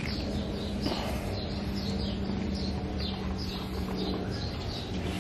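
A bird calling over and over in short falling chirps, about two a second, with a steady low hum underneath.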